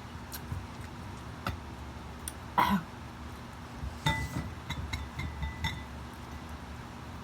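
A utensil clinking against a dish while eating: scattered light taps, then a cluster of clinks from about four seconds in that ring briefly.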